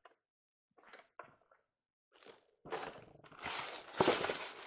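Expanded-polystyrene foam packaging insert and cardboard box being handled, a dry crunching and rustling that starts loud about two and a half seconds in, after a few faint rustles.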